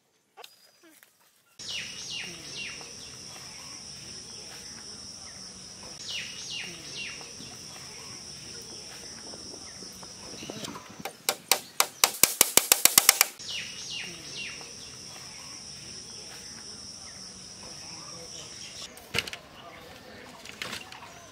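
Outdoor insect and bird ambience: a steady high-pitched insect drone with a few short falling bird chirps. About halfway through, the drone gives way for two seconds to a fast, loudening run of sharp clicks.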